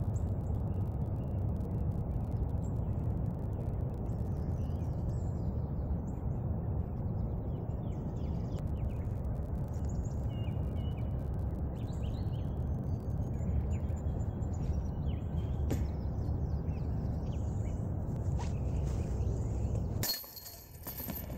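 Steady low outdoor rumble with birds chirping throughout, and a single sharp click about three-quarters of the way through.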